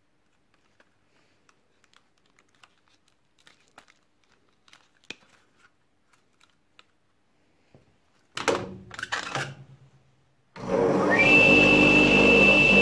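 Faint clicks of gloved hands handling a cassette Walkman, then a short clatter past halfway. Near the end a wet tile saw's electric motor is switched on and spins up, a rising whine settling into a steady high whine over the running motor.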